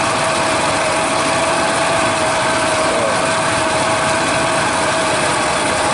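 An engine idling steadily, with a constant whine running over the engine noise.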